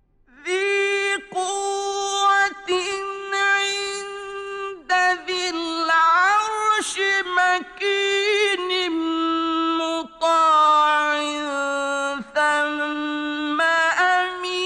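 A man's voice chanting Quran recitation in the melodic tajweed style. The phrases are long, held and ornamented, with brief breaks for breath.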